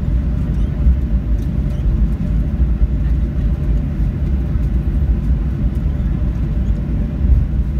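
Steady low rumble of a Boeing 737-800 rolling on the ground after landing, heard from inside the cabin: tyre and landing-gear rumble under the sound of its CFM56-7B engines, with a faint steady hum above it.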